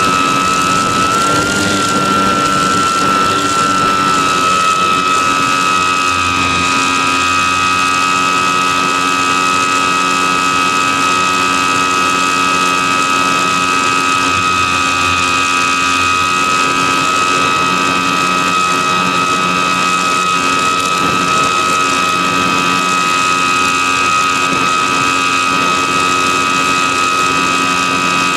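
The electric motor and propeller of an E-flite Apprentice S 15e RC trainer plane in flight, heard from a camera on the plane: a steady, high-pitched whine over a rush of air. The whine rises slightly about a second in, then settles a little lower about four seconds in.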